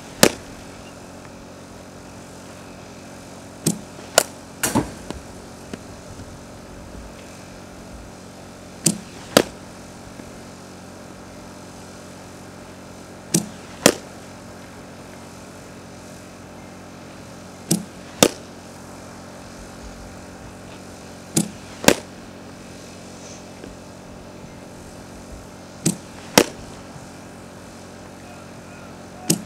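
Softball bat hitting pitched balls, a sharp crack about every four and a half seconds, each one preceded about half a second earlier by a softer knock.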